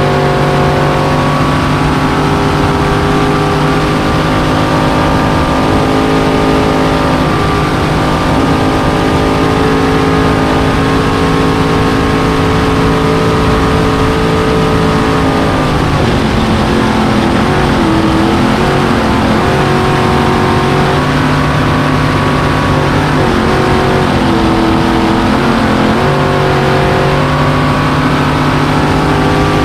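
Supercharged, fuel-injected 427 Chevy big-block V8 in a Rayson Craft V-drive race boat, running hard at racing speed and heard up close from inside the cockpit, with rushing wind and spray. The engine note holds steady, then dips and wavers about halfway through and again a little later before settling back.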